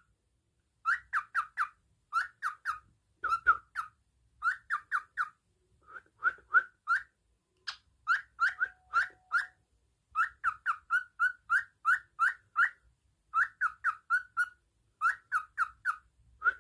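Pet cockatiel whistling, short notes coming in quick runs of three to six with brief pauses between runs.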